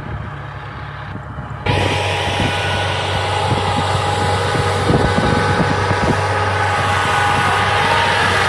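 A rice combine harvester's engine running steadily. About two seconds in, the sound turns suddenly louder and harsher, with a clatter of short knocks over the drone.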